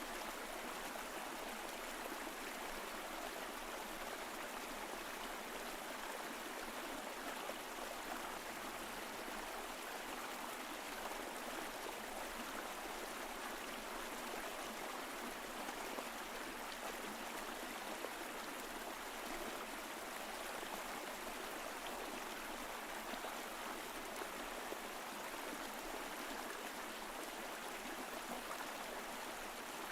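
Mountain stream flowing steadily, an even rush of water with light gurgling.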